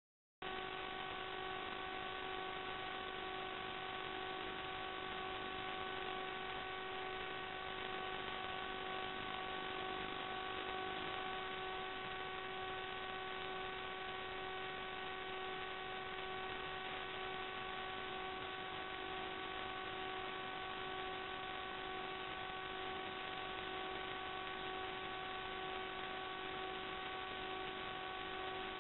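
Steady electronic hum and hiss from the audio channel of the analog FPV video link as captured by the SD DVR: several fixed tones over an even hiss, starting suddenly a moment in and not changing at all.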